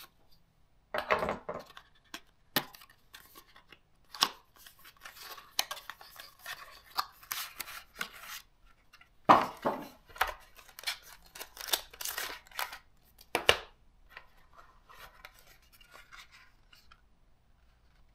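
Hands unboxing a small white cardboard box: rustling and scraping of the packaging with many small clicks, and a few sharp knocks, the loudest about nine seconds in and again just before thirteen and a half seconds, then only faint rustling.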